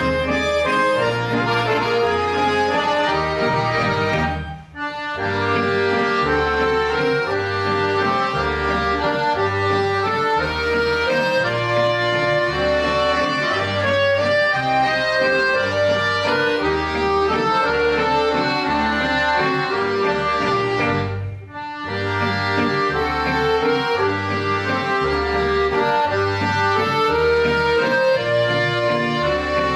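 Accordion ensemble of piano and button accordions playing a tune together over a steady, regular bass line, with two brief pauses in the music.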